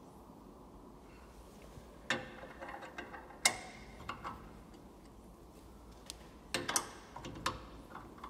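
Sharp metal clicks and clinks as drill-bit holders are pushed into the spindles of a multi-spindle hinge drilling machine: a cluster about two seconds in and another near the end, with the machine itself not running.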